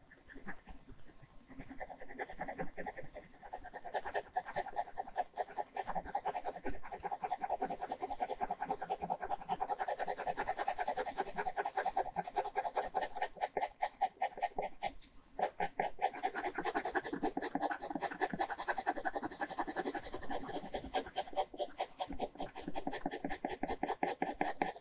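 Ballpoint pen scratching on paper in rapid, even back-and-forth hatching strokes, with a short break about fifteen seconds in.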